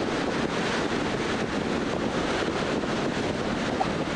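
Steady road and wind noise of a car driving at highway speed: tyres on the pavement and air rushing past, even and unchanging.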